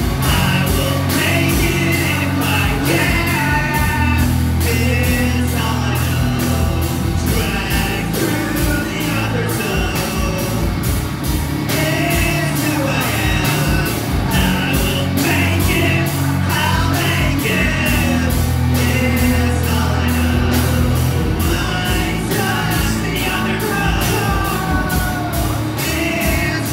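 A live rock band playing: electric guitars and drums with a singer, amplified through the PA in a hall. The beat is steady and the sung lines come and go over it.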